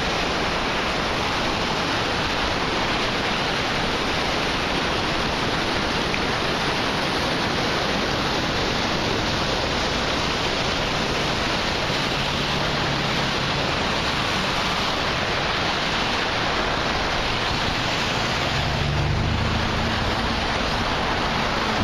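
Floodwater rushing through a flooded drainage wash, a steady wash of water noise.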